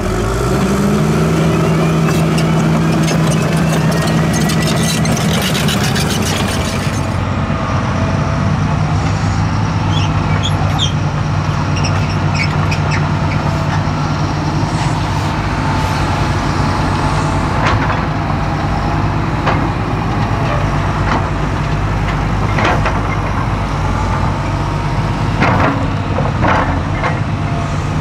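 New Holland D180 crawler dozer working, its diesel engine revving up as it pushes soil and its steel tracks clattering. About seven seconds in, this gives way to a Fendt tractor's diesel engine running steadily as it pulls a dump trailer, with a few sharp knocks in the later part.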